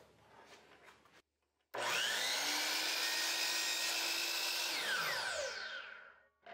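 DeWalt miter saw motor whining up to speed as the blade comes down and slices a wheel off a wooden dowel, running steadily for about three seconds. Then the motor is switched off and the whine falls in pitch as the blade spins down to rest in the cut.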